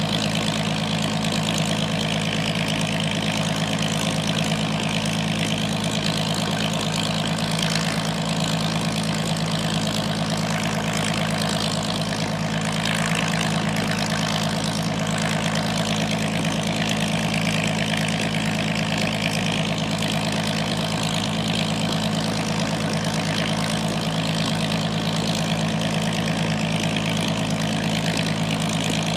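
The Allison V-1710 V12 engine of a restored Ilyushin IL-2 Sturmovik idling steadily on the ground during an engine run.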